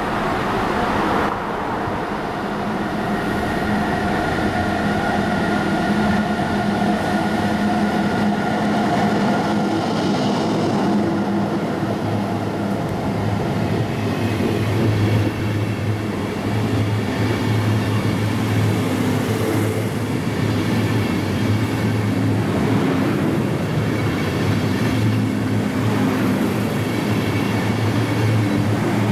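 Locomotive-hauled DB InterCity train running through a station without stopping: the locomotive nears and goes by with a whining tone over the first ten seconds or so, then the long line of coaches rolls past with steady wheel and rail noise and a low hum.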